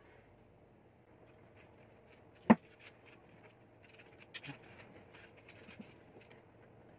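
A single loud, sharp click about two and a half seconds in, then light scattered clicks and rattles as a mountain bike rear wheel is worked into the frame past the rear derailleur and chain.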